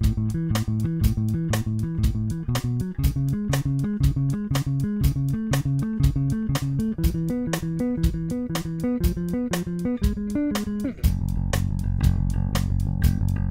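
Five-string electric bass strung with Markbass Advanced steel hex-core strings, through Seymour Duncan Quarter Pound pickups and recorded direct with no amp: a fast, even run of plucked notes with sharp attacks. About 11 seconds in, the playing drops to lower, fuller notes.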